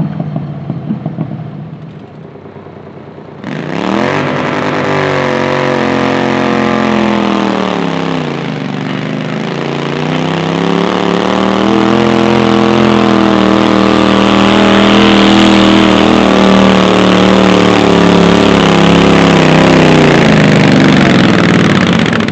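Garden pulling tractor's engine under full throttle on a pull. It comes in loud about three and a half seconds in with a rising pitch, sags about eight seconds in, then climbs back and holds high, and drops off near the end.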